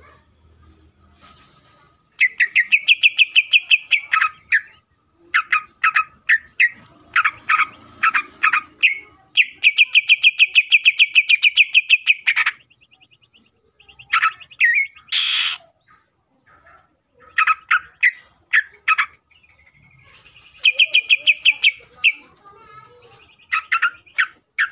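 Male cucak ijo (green leafbird) singing loudly: three long rattling trills of about nine fast repeated notes a second, with single sharp whistled notes in between and a short harsh buzzy call midway.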